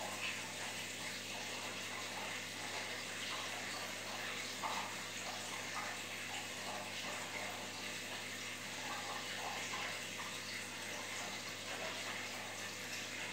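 Steady splashing and bubbling of aquarium water, with a rising air-bubble stream and a circulation pump churning the surface. A low steady hum runs underneath.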